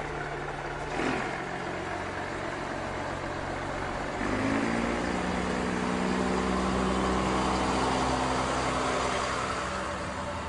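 Esslinger diesel railcar pulling away from a station: a short hiss of air about a second in, then the diesel engine picks up revs about four seconds in and runs louder as the railcar accelerates past.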